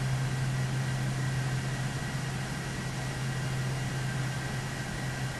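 Steady machine noise: a constant low hum under an even hiss, with a faint high-pitched whine held throughout.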